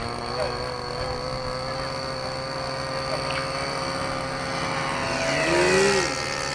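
Small engines of radio-controlled model airplanes buzzing in flight. Near the end, one plane passes close, growing louder with its engine pitch rising and then dropping.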